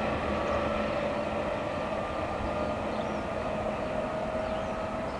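Departing Rotem Silverliner V electric multiple-unit train pulling away into the distance: a steady rail rumble with a faint electric whine that climbs slowly in pitch as it accelerates, slowly fading.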